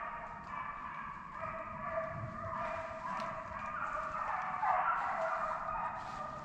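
A pack of deer hounds baying on a running trail, several voices overlapping in a continuous chorus of drawn-out cries.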